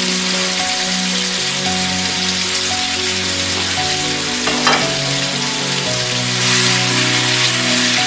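Pork fillets sizzling steadily as they brown in a hot metal frying pan, turned with tongs, with one light clack about halfway through. Soft background music plays underneath.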